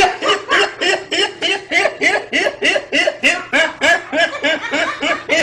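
A person laughing in a long, unbroken run of short, high-pitched bursts, about four a second.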